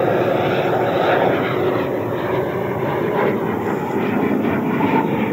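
Electric ducted fan of a radio-controlled Odyssey jet (JETFAN-120 PRO with a HET Typhoon motor) running at near full throttle in flight. It makes a steady rushing jet-like noise that eases slightly about two seconds in.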